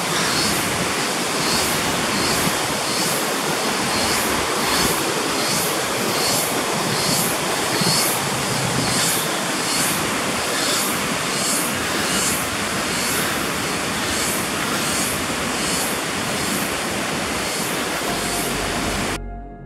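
Rushing water of a river or cascade, a loud steady rush, with a regular high-pitched pulsing about one and a half times a second over it. It cuts off suddenly near the end.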